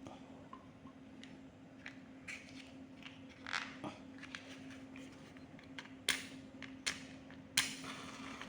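A steady low hum with scattered clicks and rustles, like things being handled. The sharpest clicks come about three and a half seconds in, then at about six, seven and seven and a half seconds.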